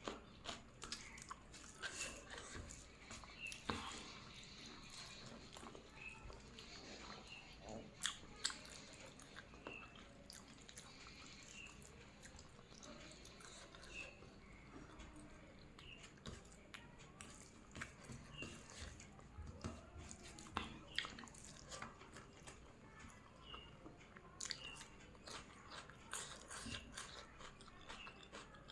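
A person chewing and biting chicken biryani close to the microphone: a steady run of wet mouth clicks and smacks, with a few louder crunching clicks.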